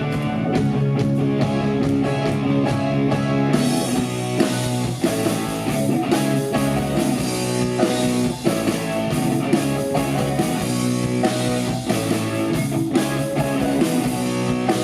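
Live rock band playing an instrumental passage: electric guitars and bass over a steady drum-kit beat, with no vocals.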